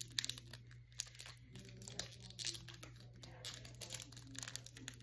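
Packaging of a Pokémon trading card blister pack crinkling in the hands as it is torn open: many small irregular crackles of plastic and foil, over a steady low hum.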